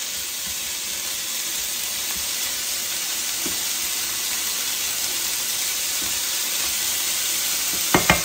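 Sliced bell peppers and red onion sizzling steadily in a hot frying pan on high heat, being tossed with tongs. Right at the end a quick run of sharp taps starts.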